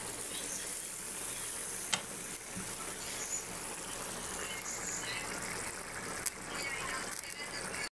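Pork stew in a frying pan boiling hard: a steady bubbling hiss, with a sharp click about two seconds in and another past six seconds.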